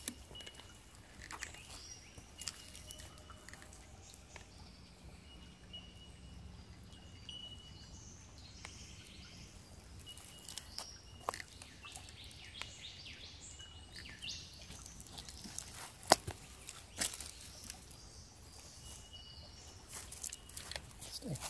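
Footsteps crunching on a forest track, with scattered sharp snaps, one louder than the rest about three-quarters of the way through. Birds call now and then with short, thin whistled notes.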